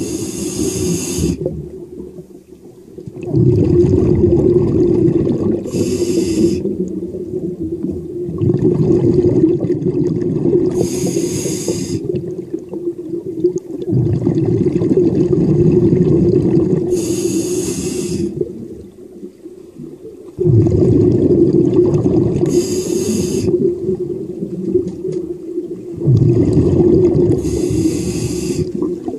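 Diver breathing through a scuba regulator underwater: a short hiss on each inhale, then a long bubbling rumble of exhaled air, repeating about every five and a half seconds, six breaths in all.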